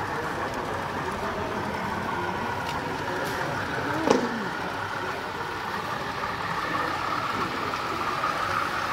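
Steady murmur of many visitors talking in a busy exhibition hall, with one sharp click about four seconds in.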